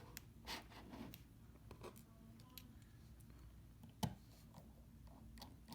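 Near silence with a few faint clicks and taps, and one sharper click about four seconds in: a small screwdriver working at the tiny display screws of an iPhone 6 Plus.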